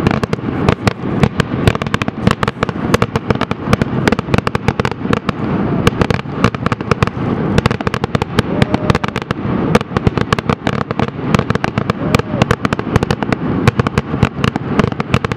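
Fireworks finale: a dense, unbroken barrage of sharp bangs and crackling reports, many per second, with no let-up.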